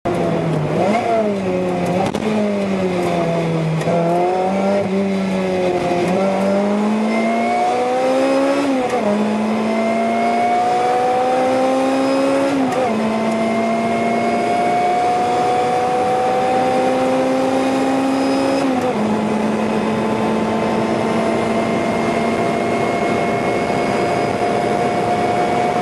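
Supercharged 2ZZ 1.8-litre four-cylinder of a 2007 Lotus Exige S, heard from inside the cabin on a track lap. For the first nine seconds the revs rise and fall through the corners. Then they climb steadily, broken by three upshifts about nine, thirteen and nineteen seconds in.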